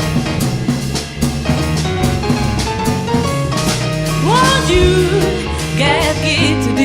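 A live band playing: drum kit and guitar over a steady bass, with a sliding lead melody coming in about four seconds in.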